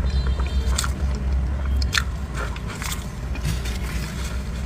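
Close-miked eating sounds of cream-filled pastry being bitten and chewed: wet mouth clicks and smacks at irregular intervals, over a steady low hum.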